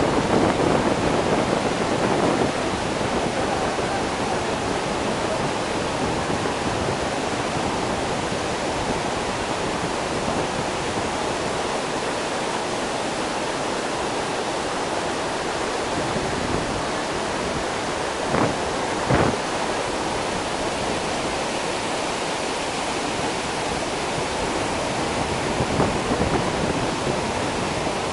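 Iguazu Falls' cascades pouring: a loud, steady, unbroken rush of falling water. A couple of brief knocks come about two-thirds of the way through.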